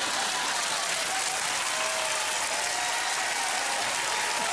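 Studio audience applauding at a steady level.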